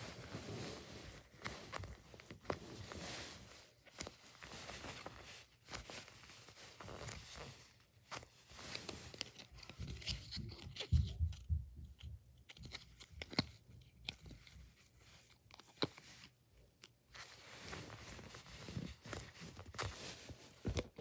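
Hands squeezing, rubbing and handling foam squishy toys against a fabric bedspread: soft, irregular crackling and rustling, with a louder thump about eleven seconds in.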